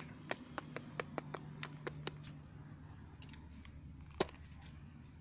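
A hen pecking dry cat kibble from a bowl: sharp, irregular clicks of its beak striking the pellets and the bowl, several a second at first, then sparser, with one louder knock about four seconds in.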